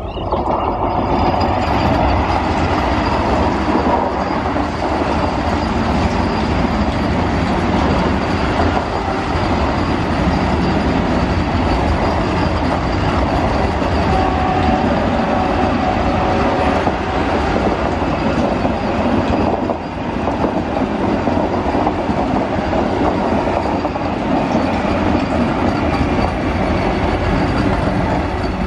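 Vande Bharat Express electric multiple-unit train passing close by at speed: a loud, steady rush of wheels on the rails that rises sharply within the first second and holds to the end. A faint brief whine sounds in the middle.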